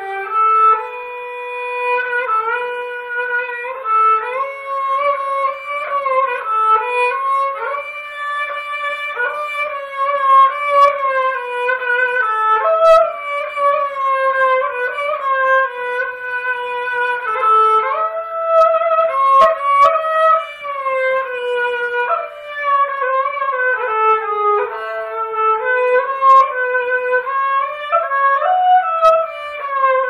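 A newly built Politiki lyra (Istanbul kemençesi), a three-string bowed fiddle, playing a solo melody under continuous bowing, its notes stepping and sliding from one to the next.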